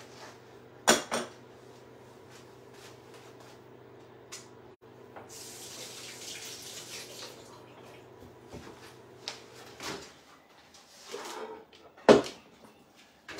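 Kitchen sounds: a low, steady appliance hum that cuts off about ten seconds in, a short rush of running water near the middle, and sharp knocks of dishes or utensils about a second in and again near the end.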